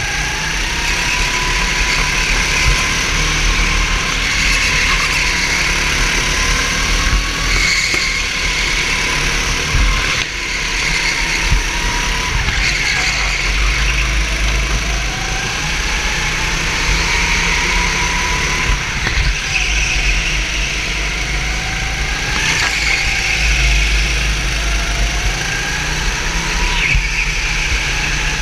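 A racing kart's engine heard on board at race pace. Its pitch rises as it accelerates and drops as it lifts off for the corners, over and over, above a heavy low rumble of vibration and wind on the mount.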